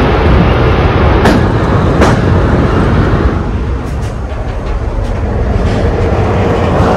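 Passenger train running over a steel railway viaduct, heard from an open window: a loud, steady rumble of wheels on rails with a couple of sharp clicks in the first two seconds. The noise drops for a moment in the middle, when the microphone comes inside, then rises again.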